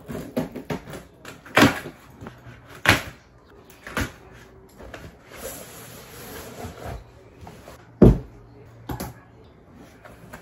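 Cardboard parcel being handled and opened: a series of sharp knocks and thumps, the loudest about a second and a half, three and eight seconds in, with rustling of packaging between them.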